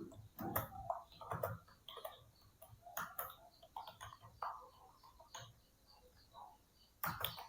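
Typing on a Dell KB216 membrane keyboard: irregular runs of soft key clicks and taps, with a denser burst of keystrokes near the end.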